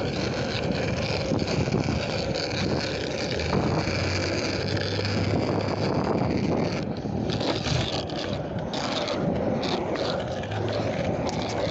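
Skateboard wheels rolling over pavement: a steady rough rumble with a scraping edge, thinning briefly a few times about seven to nine seconds in.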